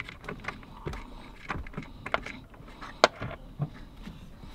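Scattered light clicks and knocks of a hand tool and metal parts being worked by hand at a brake master cylinder, irregular, with the sharpest click about three seconds in.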